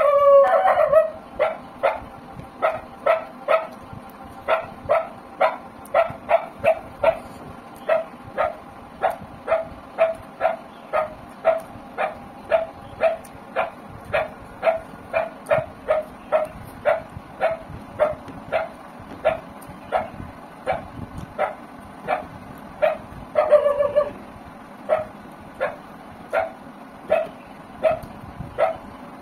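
A dog barking over and over at an even pace, about two short barks a second, with a longer, wavering yelp at the start and again about 23 seconds in.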